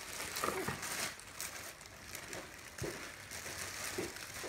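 Packaging rustling and crinkling in short bursts as a wrapped item of clothing is opened by hand.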